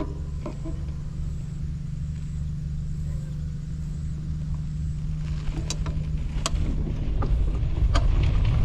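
Quad bike engine running steadily at low revs. About five seconds in it moves off over rough dirt, with sharp knocks and rattles from the bumps and the sound growing louder.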